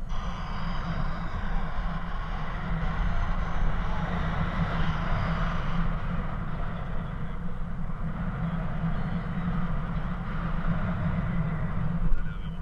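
Wind rushing over the microphone of a camera carried by a paraglider in flight: a steady low buffeting rumble with airy hiss, briefly louder near the end.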